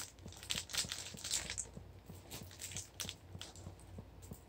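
Small plastic bags of diamond-painting drills (resin beads) being handled, crinkling with many light clicks. Denser for the first second and a half, then fainter.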